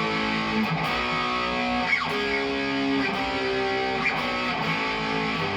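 A Cort Viva guitar played for a sound check: ringing chords and single notes that change about once a second.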